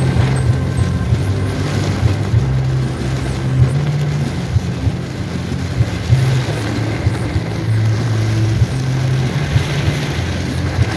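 Torrential rain drumming on a car's roof and windscreen, heard from inside the moving car, over the steady low hum of the engine and tyres on the wet road.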